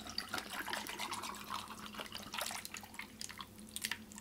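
Water poured from a plastic bottle over ice cubes in a glass: a thin trickling splash dotted with small scattered clicks.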